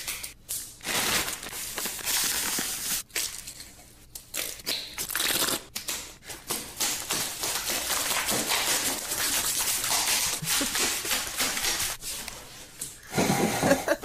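Wet, messy squelching and crackling of food and oil being smeared and mashed by hand, in noisy spells with short pauses.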